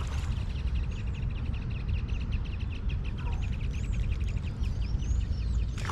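Birds calling: a rapid, evenly pulsing call that runs on steadily, with a few short high chirps above it, over a low rumble.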